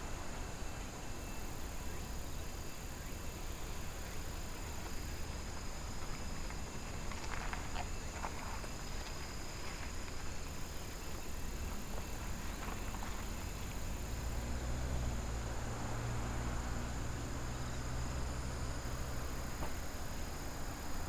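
Crickets and other insects singing steadily in several high continuous tones over a constant low background rumble. About two-thirds of the way through, a low engine drone comes in for several seconds.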